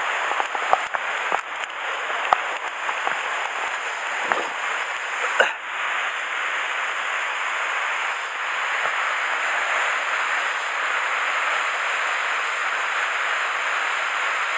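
Waterfall rushing steadily, with a few sharp clicks and knocks in the first half.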